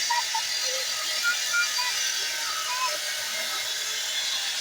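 Electric woodworking power tool running steadily under load with a high whining hiss, with a few short chirps over it.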